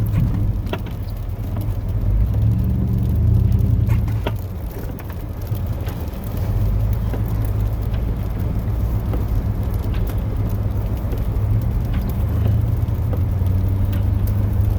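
Chevrolet plow truck's 8.1 L Vortec big-block V8 running steadily under load while pushing heavy wet snow, heard from inside the cab. It eases off briefly around the middle, and there are scattered light clicks and knocks.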